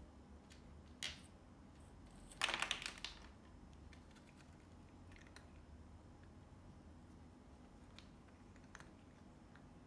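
A single knock about a second in, then a quick clatter of cat food pieces spilling onto the cardboard floor of the box, released when the cat paws the ping pong ball stopper. A few faint ticks follow as the cat eats the food off the cardboard.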